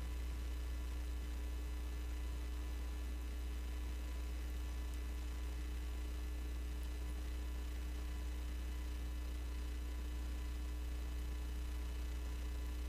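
Steady low electrical hum, mains hum in the broadcast audio feed, with faint steady higher tones above it and no other events.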